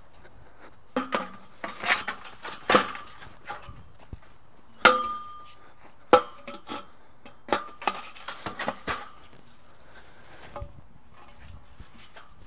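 Metal carport frame tubes clanking and clinking as its legs are fitted into the arches: a string of sharp metallic knocks, the loudest about five seconds in with a short ring after it.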